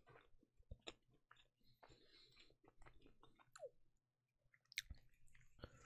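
Faint chewing of a burger, with small wet mouth clicks and smacks.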